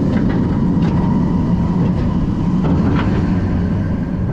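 Candymonium's B&M hyper coaster train rolling along its steel track on the final stretch toward the station, a steady loud low rumble with a few short clacks.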